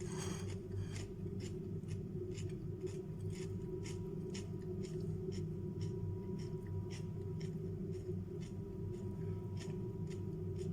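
Close-up crunching of raw vegetables being chewed, crisp regular crunches about three a second, over a steady low hum.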